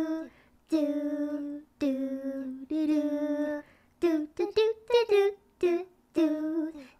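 A high female voice singing a simple tune: a few notes each held about a second, then a run of short quick notes about four seconds in, and one more held note near the end.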